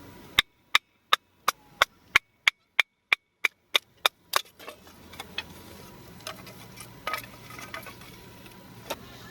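Sharp knocks on wood, about three a second, a dozen in a row, followed by a few fainter, scattered knocks.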